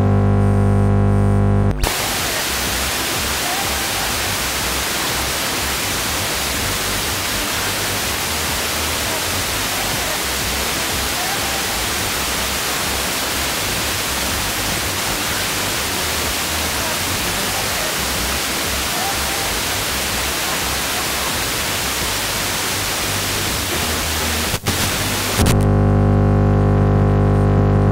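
FM car radio on 89.8 MHz giving a loud buzz with many evenly spaced overtones: chopping interference from a switching power supply that has swamped the transmitter's stereo coder. About two seconds in the buzz cuts off to steady FM static hiss. There is a click just before 25 seconds, and the buzz comes back shortly after.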